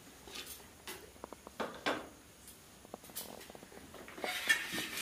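Light clinks and scrapes of stainless steel plates and bowls being set down and handled on the floor, a few sharp taps with two short rustling, scraping patches, the louder one near the end.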